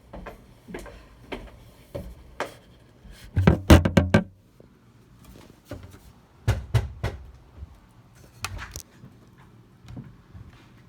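Footsteps thumping up stairs, about two steps a second. A loud cluster of knocks and clatter comes about three and a half seconds in, and more knocks follow later.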